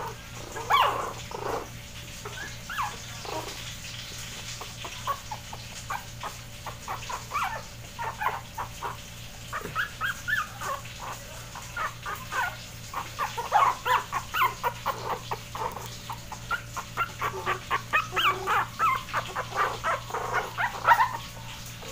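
One-month-old Shih Tzu puppies crying: a long string of short, high whimpers and yips that come thicker and louder in the second half.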